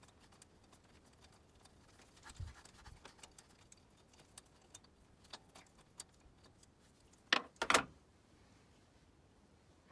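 Small metallic clicks and rattles of a socket extension turning the auxiliary belt tensioner's bolt out by hand, with a short clatter of several quick metal knocks about seven seconds in as the extension and loose bolt are drawn out.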